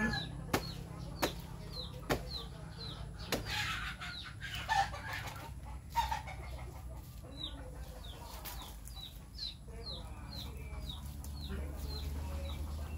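A few sharp chops of a bolo knife into a banana plant's stem over the first three seconds or so. Chickens cluck, and short high falling peeps repeat about twice a second throughout.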